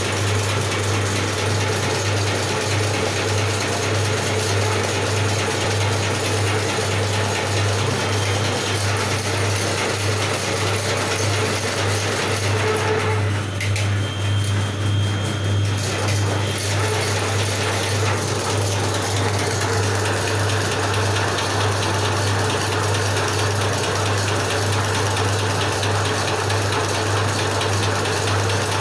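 Automatic incense-stick (agarbatti) making machine running: a steady motor hum under fast, continuous mechanical clatter as it coats bamboo sticks with paste. The clatter thins briefly about halfway through.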